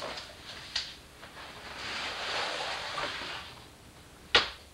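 Cardboard box of an upholstery kit being handled and its cover pieces slid out, a long rustling of material against cardboard in the middle, with a few light clicks before and one sharp knock near the end.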